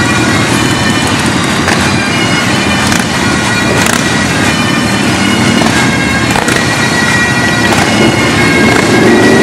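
Bagpipes playing a tune over steady droning.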